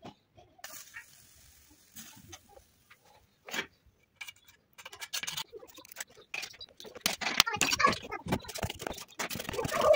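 Molten lead poured into a sand mould, with a brief faint hiss about a second in. Near the end the cooled lead casting is dug and lifted out of the sand: clicks and scraping of crumbling sand against metal.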